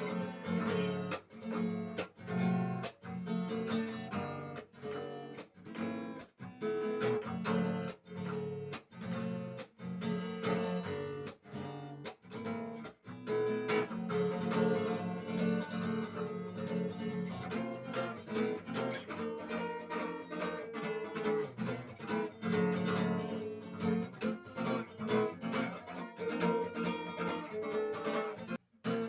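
Guitar strummed in a steady rhythm of chords, with a brief stop just before the end.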